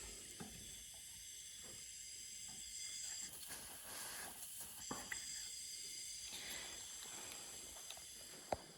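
Faint, steady, high hiss of air escaping from the pressurized Coleman Powermate air compressor, a leak he points to as one of its problems, with a few light clicks.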